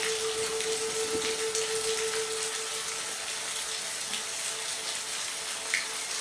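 Steady rain falling, an even hiss with scattered drops ticking. A single held low tone sounds under it and fades out about halfway.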